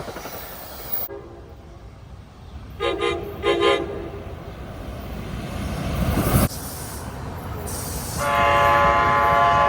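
Train horn sounding a multi-note chord over the low rumble of a train: a faint blast near the start, two short toots about three seconds in, then a long loud blast from about eight seconds in. A rushing noise builds and cuts off suddenly about six and a half seconds in.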